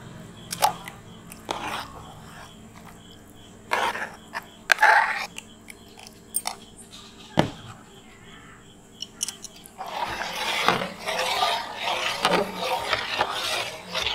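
A steel spoon stirring thick reduced milk and ground sago in a steel bowl, a dense scraping, clinking sound that starts about ten seconds in. Before that, scattered light clicks and knocks.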